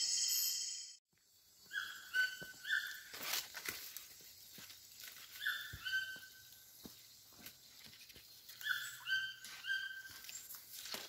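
A music sting ending about a second in, then an animal calling in short runs of three or four clear, flat notes, the runs repeating every three to four seconds, with scattered light clicks and knocks.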